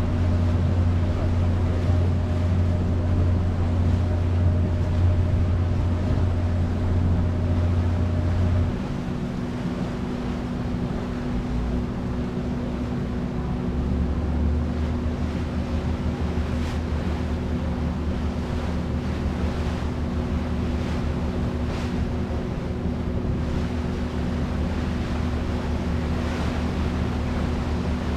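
A passenger ferry's engine hums steadily over the hiss of water and wind. The engine eases off about nine seconds in, and a slightly deeper hum picks up again a few seconds later.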